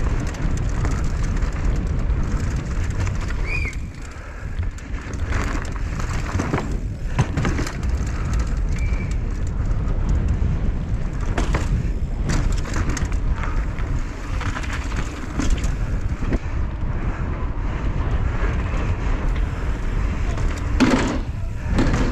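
Downhill mountain bike ridden at race speed over an urban course, heard from a camera on the bike or rider: a steady rumble of tyres and wind against the windscreened microphone, with many sharp knocks and rattles as the bike hits bumps, steps and landings.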